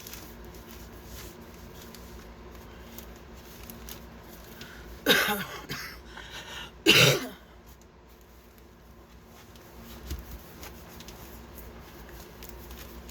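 A person coughing or clearing their throat twice, two short loud bursts less than two seconds apart, about halfway through.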